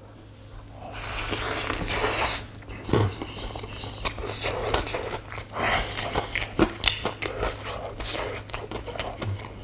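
Eating sounds: biting into and chewing a fried chicken drumstick coated in spicy buldak sauce, with crackly clicks and sticky mouth noises. The loudest stretch comes about a second in and lasts a little over a second.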